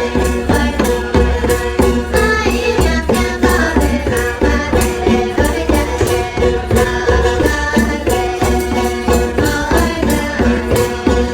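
Folk-style music with singing over a quick, steady beat of shaker-like percussion.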